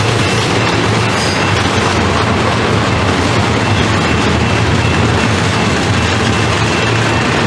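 Double-stack intermodal train's container-laden well cars rolling past close by: a loud, steady rumble of steel wheels on rail.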